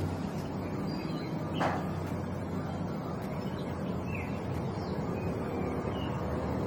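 Birds calling with short chirps over a steady low hum, with one louder call gliding downward about a second and a half in.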